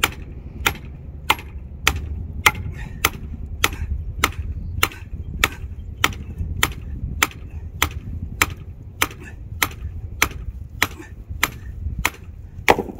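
A short-handled sledgehammer striking the top of a 5/8-inch copper ground rod, driving it into the ground. The blows are steady and evenly paced, about one every 0.6 seconds, each a sharp metallic hit.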